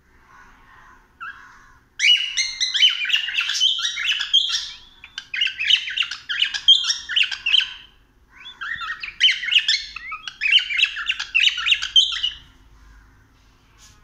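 Cockatiel calling in quick, dense runs of chirping notes. It starts about two seconds in after a few faint chirps, pauses briefly in the middle, and stops near the end.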